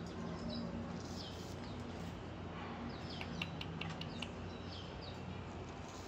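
Small birds chirping: thin, high, squeaky calls that fall quickly in pitch, coming every second or so, with a quick run of sharp ticks a little past the middle.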